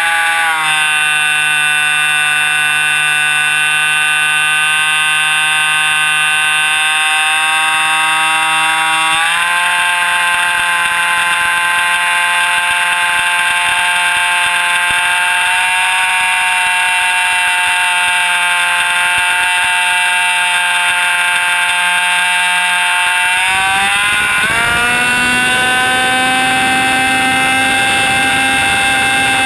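Jett .90L two-stroke glow engine of an RC model plane running at high throttle, a loud high-pitched whine heard up close from a camera on the airframe. Its pitch dips slightly about half a second in, steps up around nine seconds in, and dips then climbs again a few seconds before the end.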